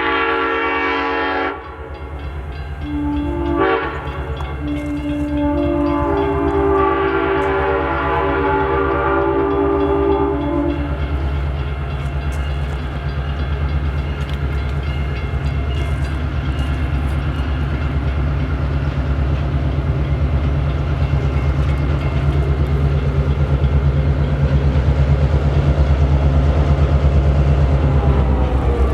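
Diesel locomotive horn sounding: a long blast ending about a second and a half in, a short one near four seconds, then a longer blast to about eleven seconds. Under it the locomotive's diesel engine runs steadily throughout, getting slightly louder near the end.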